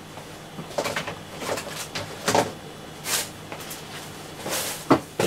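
Small objects being handled on a tabletop: a few brief rustles and soft knocks, ending in a sharp click.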